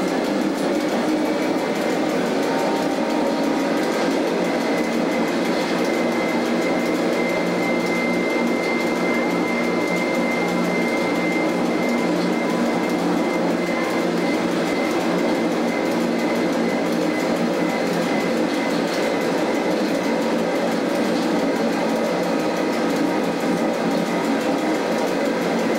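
Electric cogwheel railcar of the Zugspitze line running steadily along the track, heard from inside the driver's cab: an even hum of motors and running gear, with a thin, steady high whine coming in about five seconds in.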